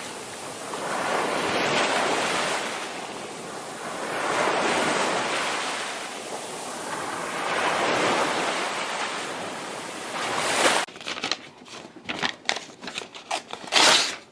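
Ocean surf: a rushing noise that swells and fades three times, about three seconds apart, like waves breaking and washing in. About eleven seconds in it stops abruptly and gives way to a run of irregular sharp clicks and crackles.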